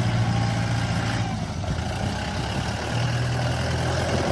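A steady low, engine-like motor hum.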